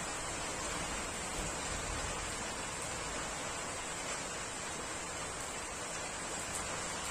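Rain falling steadily, a dense, even hiss.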